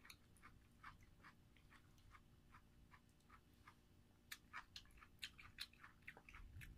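Faint chewing, eating rice and chicken by hand: a scatter of small wet mouth clicks a few times a second, a little louder a little past the middle.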